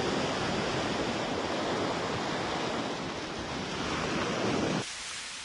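Sea waves washing on a shore: a steady rush of surf that thins to a faint hiss near the end.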